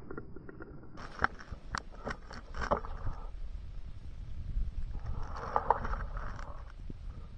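Scraping and rustling with a series of sharp clicks and knocks, heaviest about a second in and again near the middle: a hunter shifting in a tree stand and handling his rifle and camera.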